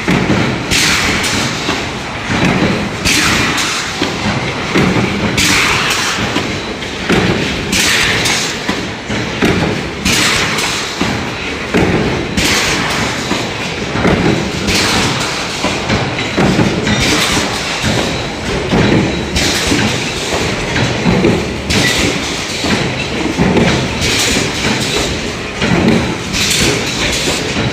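Power punch press stamping stainless steel coil into electric kettle body blanks: a heavy thump about every two seconds over a steady factory din.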